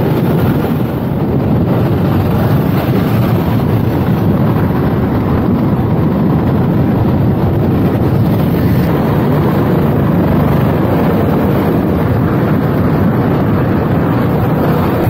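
Steady wind rush on an action-camera microphone aboard a moving motorcycle, over the bike's engine and road noise. It holds an even level throughout, with no change in pace.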